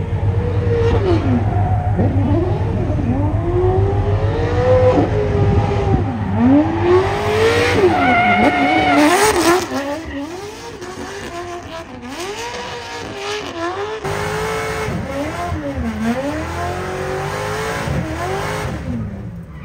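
Drift car's engine revving up and down over and over as the car slides, with tyre squeal loudest about seven to nine seconds in. The sound is louder in the first half and drops off after about ten seconds.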